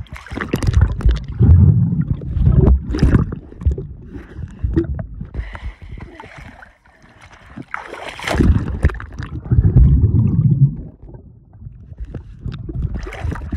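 Pool water splashing and gurgling against a phone's microphone as it is taken underwater, with two long stretches of loud, muffled underwater rumbling and bubbling, the first at the start and the second about eight seconds in.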